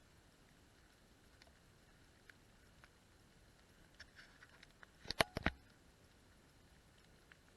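Faint background hiss with scattered light ticks, and a quick run of four or five sharp clicks or knocks about five seconds in.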